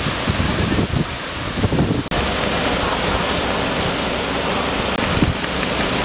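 Surf breaking on a beach with wind buffeting the microphone, a steady rushing noise that drops out for an instant about two seconds in.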